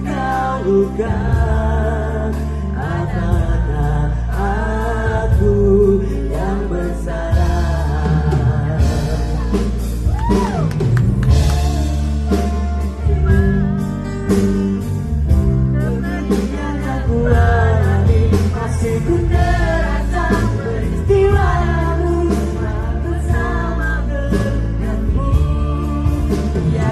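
Live band music with a male lead singer singing into a microphone, backed by acoustic guitar, bass and drums.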